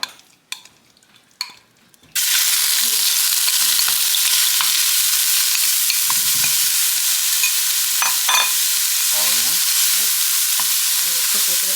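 Lemongrass paste (kreung) dropped into hot olive oil in a pan, starting a loud, steady frying sizzle suddenly about two seconds in, after a few light clicks of a utensil.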